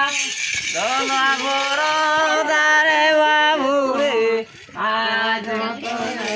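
Voices singing a Santali Sohrai cow-waking song, long wavering held notes sung without words being spoken, with a short break about four and a half seconds in.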